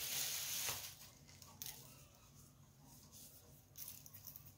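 Clear plastic meat tray and wrap rustling briefly at the start, then a few faint light taps and clicks.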